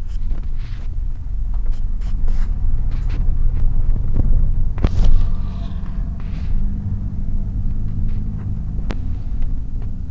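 Car driving, heard from inside the cabin: a steady low road rumble with scattered short clicks and knocks.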